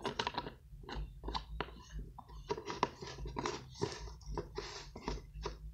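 Lotion being squeezed from a bottle into a small cup: a dense run of irregular soft squelches and clicks.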